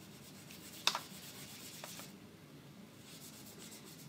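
A sharp click about a second in, then faint scratchy rubbing, from oil pastels and paper being handled at a drawing board.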